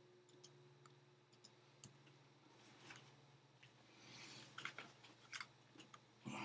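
Near silence with faint scattered clicks and rustles of small handling movements, busier and louder about four to five seconds in, over a faint low hum; a faint ringing tone dies away in the first two seconds.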